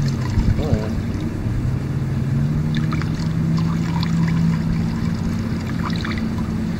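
An engine running steadily with a low, even drone, and a thin stream of paint reducer trickling from a can into a bucket of mixed paint.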